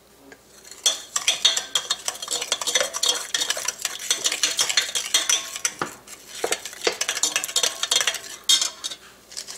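Metal spoon stirring a liquid dressing in a glass bowl, a steady run of quick clinks and scrapes against the glass, starting about a second in.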